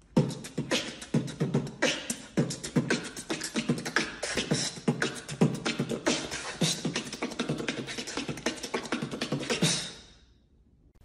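A man beatboxing: a fast, continuous run of mouth-made kick, hi-hat and snare sounds, which stops suddenly near the end.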